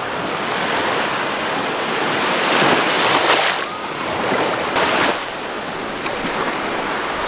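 Shallow sea surf washing in over wet sand and foaming around bare feet: a steady hiss of rushing water that swells twice, around three seconds in and again about five seconds in.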